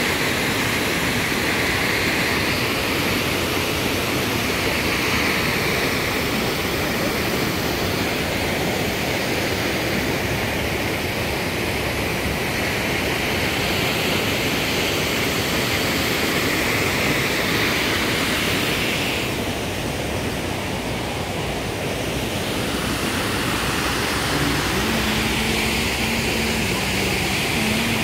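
Düden waterfall's steady rush of falling water, an even dense noise that eases slightly for a few seconds past the middle.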